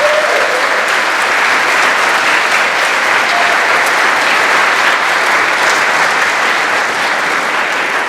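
Large audience applauding: loud, dense, steady clapping.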